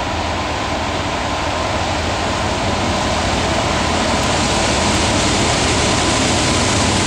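Norfolk Southern diesel locomotives led by a GE C40-9 standard-cab, engines working hard under load as they pull an intermodal train upgrade. The steady engine noise grows gradually louder as the locomotives approach.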